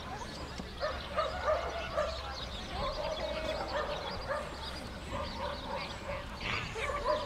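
Dogs barking and yipping off and on, many short calls overlapping.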